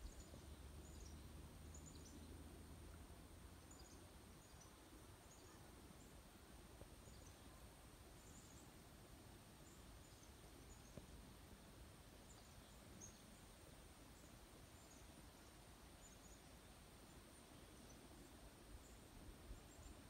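Near silence: quiet pond-side outdoor ambience with faint, scattered high chirps throughout and a thin steady high tone, plus a little low rumble in the first few seconds.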